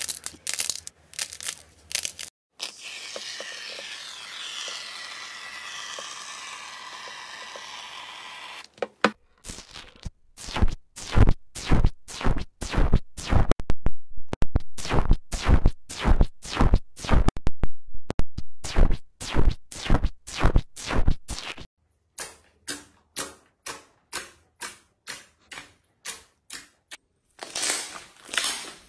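Slime and soft clay being squeezed and poked by hand: crisp crackles at first, then a steady fizzing crackle, then a long run of loud sharp pops and squelches about two a second, which grow softer near the end.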